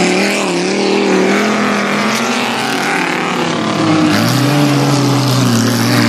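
Several stock car engines racing on a dirt track, their notes rising and falling as the cars are driven hard through the bend. A lower, steadier engine note comes in about four seconds in.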